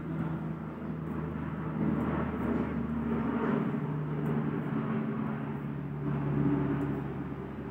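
A steady low machine hum runs throughout, holding a few pitches that shift slightly now and then.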